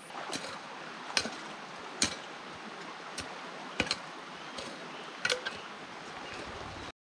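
A small hand tool knocking and scraping in stony dirt as the ground is levelled for a tent. It gives irregular sharp knocks every second or so over a steady hiss.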